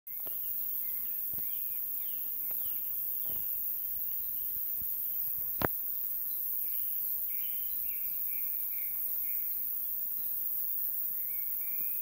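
Meadow crickets chirping in a steady high-pitched hiss, with birds giving repeated short chirps over it. A single sharp click sounds a little past halfway.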